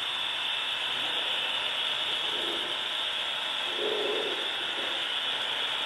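HO scale model diesel locomotive running along the track, a steady mechanical whirring of its motor and gears with a high hiss.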